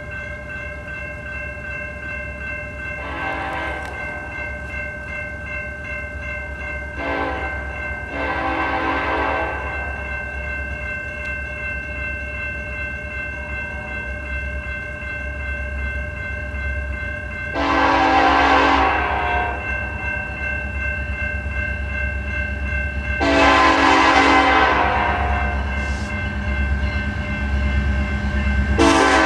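Norfolk Southern diesel locomotive sounding its multi-tone air horn in about six separate blasts as it approaches a grade crossing, the first few short and the later ones long. Underneath runs the low rumble of the approaching train.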